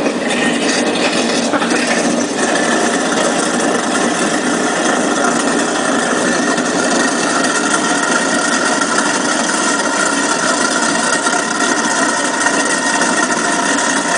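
Garbage disposal running loud and steady, grinding up frozen chicken bones, with a few knocks in the first couple of seconds as pieces hit the grinder.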